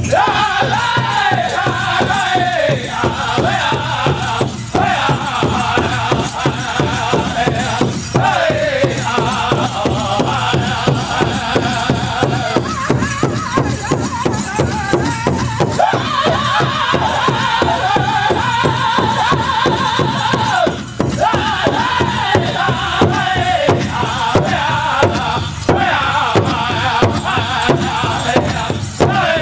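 Powwow drum group singing a chicken dance song: voices in falling phrases over a fast, steady beat on a large drum, with a steady jingling rattle that fits dancers' bells.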